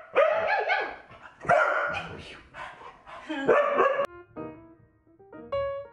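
Dogs barking repeatedly in rough play, several loud barks in quick succession. About four seconds in the barking cuts off and piano music begins.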